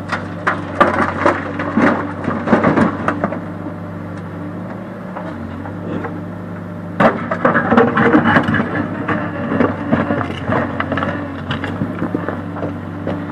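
Backhoe loader's diesel engine running steadily while rocks clatter and scrape in its bucket and tumble into a trailer. The rock noise comes in two busy bouts: the first few seconds, and again from about seven seconds in until near the end.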